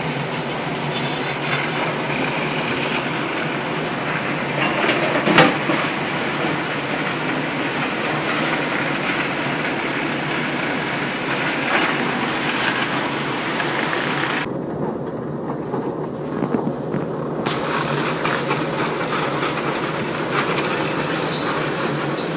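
Tuna purse seiner setting its net: a steady mechanical rumble and rattle as the net and its float line run off the stern deck into the sea while the vessel is under way, with wash of the wake.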